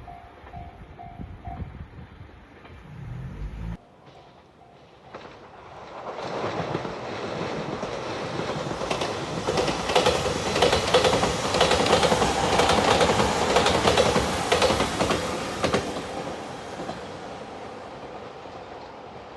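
A level-crossing warning bell rings for a moment at the start. Then a JR Shiokaze limited-express electric train passes the crossing, its wheels clattering over the rail joints as it builds to a peak and fades away.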